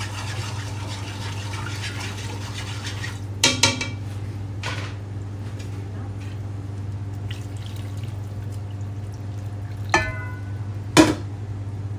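Stock being poured from a container into a cooking pot for about three seconds, then several ringing clinks and knocks of metal pot and dishware, the loudest about eleven seconds in. A steady low hum runs underneath.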